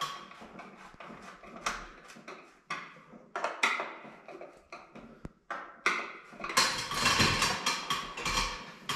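Round plastic emergency light fitting being worked onto screw heads on a wall: scattered clicks and knocks of plastic and metal, with a longer stretch of scraping and rattling about two-thirds of the way through.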